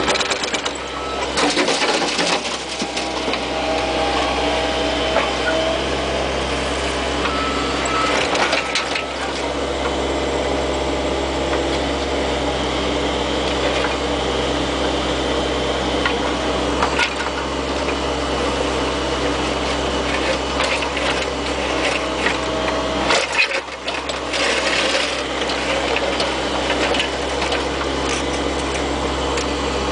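Mini excavator's engine running steadily, with a few sudden louder noises about two, eight and twenty-three seconds in.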